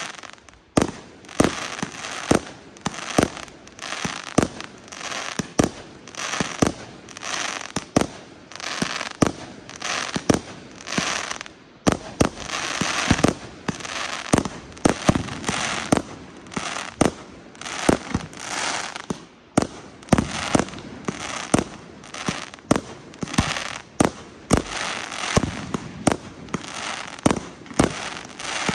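Aerial fireworks display: a continuous run of sharp shell bursts, about one or two bangs a second, with hissing and crackling between the bangs.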